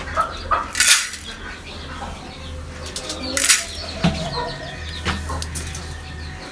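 Birds' wings flapping in two short bursts, about a second in and again about two and a half seconds later, among small clicks and faint bird calls.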